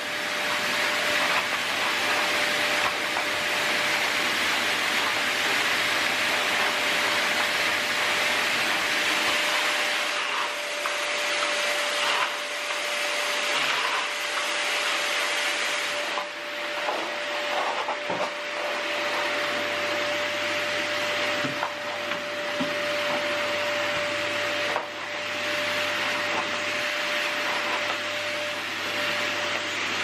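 Canister vacuum cleaner running with a steady whine, its floor nozzle pushed over carpet rugs.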